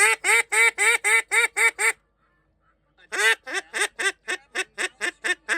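Duck quacking sound effect: a quick run of short quacks, about five a second, a pause of about a second, then a second run of quacks.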